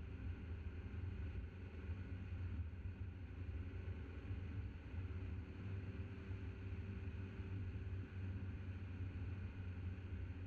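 Steady low rumble of a car driving along a road: engine, tyre and wind noise picked up by a camera mounted on the bonnet.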